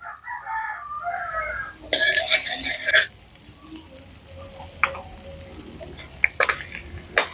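A metal ladle scraping and stirring in a wok of onion and garlic frying in oil, with a loud run of scrapes about two seconds in. A faint sizzle continues after it, broken by a few sharp taps of the ladle on the pan near the end.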